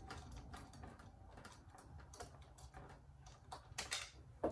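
Faint small clicks and taps as the thumb screws holding the scan mat arm on a Brother PR1055X embroidery machine are loosened by hand, with a few sharper clicks near the end.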